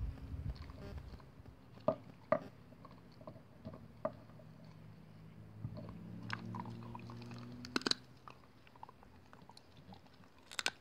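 Wheaten terrier chewing and gnawing a wooden stick, with sharp cracks and crunches of splintering wood every second or two; the loudest come about eight seconds in.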